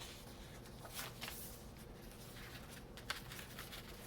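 Faint rustling and a few soft taps of paper and card being handled as a handmade journal's pages and tag are turned.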